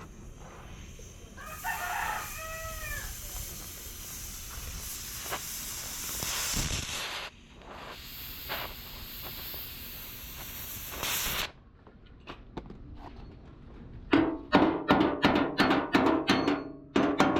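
A rooster crowing once, about two seconds in, over a steady hiss that cuts off abruptly about eleven seconds in. Near the end, loud rhythmic percussion starts.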